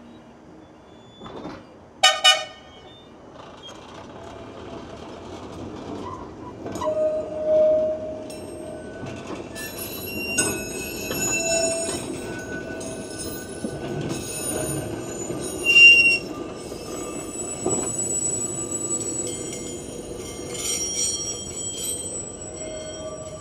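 Blackpool's illuminated Western Train electric tram sounds a short signal twice in quick succession, then pulls away and runs past. Its steel wheels squeal on the rails, with a loud screech about 16 seconds in.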